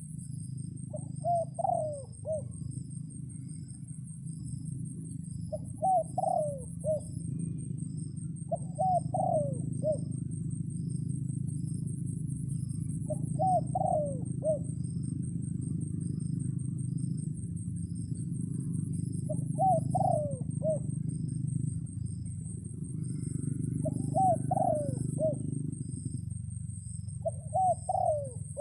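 A dove cooing in seven short phrases, one every three to six seconds, over a steady low rumble. High insects trill steadily throughout.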